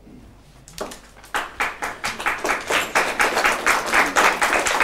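Applause from a small group, a few scattered claps about a second in that quickly build into steady, dense clapping.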